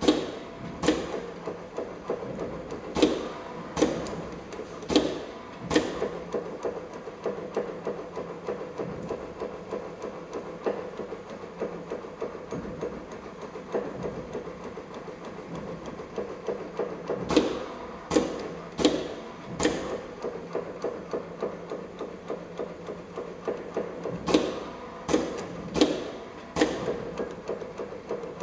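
ZY-510B automatic steel rule bending machine working a strip of blade steel. Its drive runs with a steady, fast mechanical chatter, broken every so often by groups of about four sharp metallic clacks.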